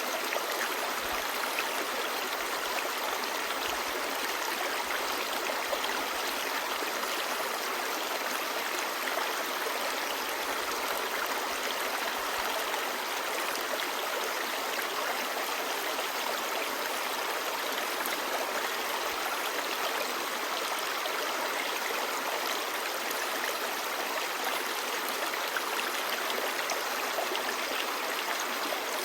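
Clear mountain stream babbling over stones: a steady, even rush of water.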